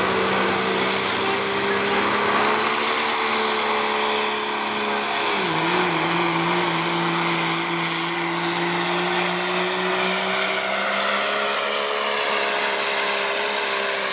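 Dodge Ram's Cummins turbo-diesel at full throttle pulling a sled, a steady drone with a high turbo whistle that climbs over the first couple of seconds. About five seconds in the engine note drops suddenly and holds lower for the rest of the pull.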